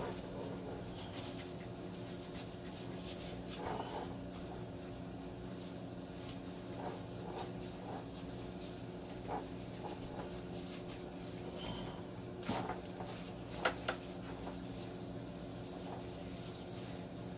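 Hands rubbing and wiping at a cable coated in sticky residue, with scattered small clicks and scrapes of handling, over a steady low hum.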